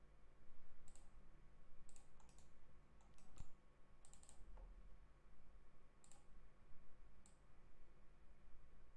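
Computer mouse clicking: about ten short, sharp clicks at irregular intervals, most of them in the first half, over a faint steady low hum.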